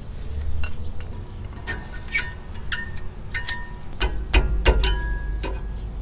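Ram 1500 rear brake pads being worked in the caliper bracket, their steel backing plates clinking against the bracket and its metal pad clips. A string of sharp metallic clicks with a short ring, most of them in the second half, with a few dull bumps.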